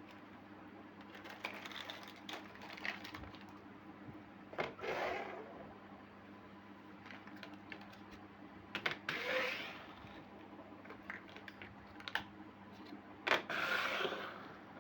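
Small plastic toy kitchen pieces being handled, with scattered light taps and clicks. Three short rustling scrapes come about five, nine and thirteen seconds in.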